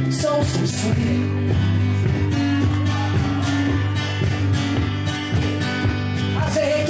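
Guitar strummed in a steady rhythm, played live in an instrumental stretch between verses of a blues-country song.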